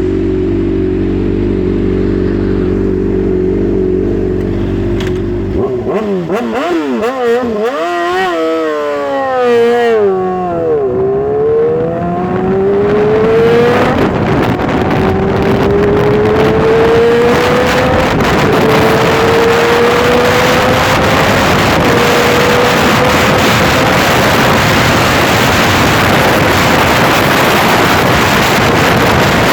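Honda CBR600RR inline-four sport bike engine idling steadily, then revved in quick up-and-down blips from about six seconds in. From about eleven seconds it accelerates through the gears: a run of rising engine notes, each cut short by an upshift and each climbing more slowly, under a growing rush of wind noise.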